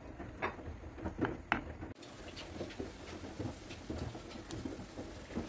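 A wooden spoon knocking a few times against a nonstick frying pan as chopped onion is stirred in oil, then, about two seconds in, the onion sizzling and crackling as it fries in the hot oil.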